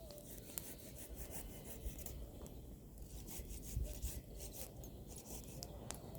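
Pruned apple-tree branches burning in an open bonfire: scattered sharp crackles and pops over a low steady rumble.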